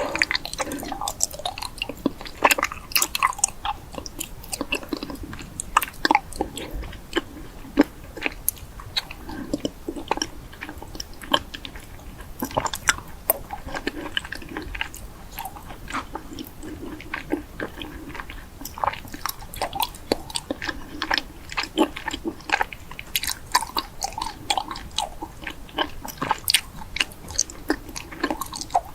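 A person biting and chewing crunchy food close to the microphone: a continuous run of sharp crunches and clicks.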